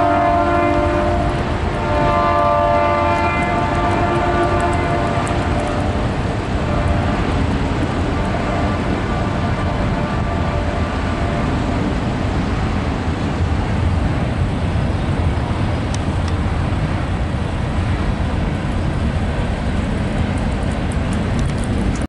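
Union Pacific freight locomotive's multi-note air horn sounding, ending about a second in, then a second long blast from about two to five seconds in. After that comes the steady rumble and rail noise of a manifest train's cars rolling past.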